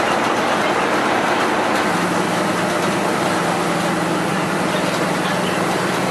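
Scania F113 bus's front-mounted diesel engine running, with road noise and body rattle. About two seconds in, a steady low drone settles at a constant pitch.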